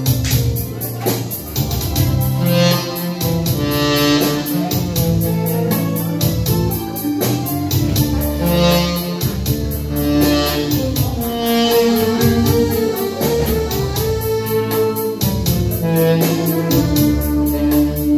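Instrumental band music: a tenor saxophone plays the melody over electric guitar and electronic keyboard backing with bass.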